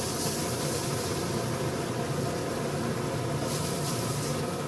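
Floured tararira fillets searing in hot butter in an electric skillet: a steady sizzling hiss, a little brighter about half a second in and again near the end, over a steady low hum.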